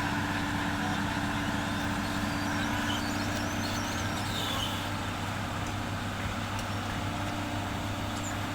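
Komatsu excavator's diesel engine running steadily under load, with a constant low hum that eases slightly about five seconds in.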